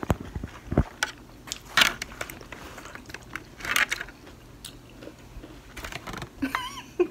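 Eating stuffed green bell peppers: chewing and biting, with scattered clicks of forks on plates. A few dull knocks in the first second as a hand handles the phone.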